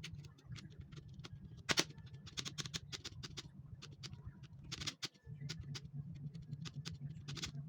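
Plastic computer keyboard keys clicking and rattling in irregular bursts as the keyboard is worked over for cleaning, over a steady low hum that cuts out briefly about five seconds in.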